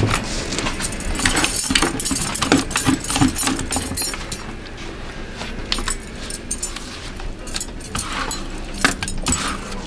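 Metal bangles clinking on a wrist while a spatula scrapes and taps soap batter out of a plastic bucket, in a string of irregular clicks and rattles.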